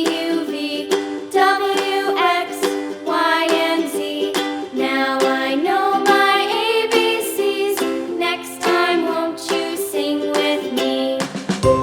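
Upbeat background music with a plucked ukulele-like accompaniment and a bright melody line.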